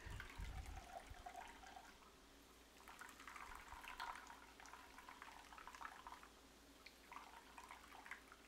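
Almond milk trickling and dripping from a squeezed mesh strainer bag into a bowl: a faint, uneven patter that comes and goes.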